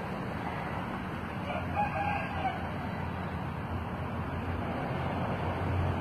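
A rooster crowing once, briefly, about a second and a half in, over a steady low background rumble.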